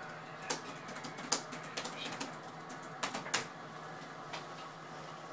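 Irregular clicks and taps of a computer keyboard being typed on, a few keystrokes at a time, over a faint steady low hum.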